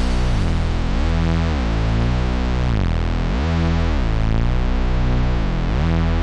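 Background electronic music with a heavy synthesizer bass and a steady repeating pattern.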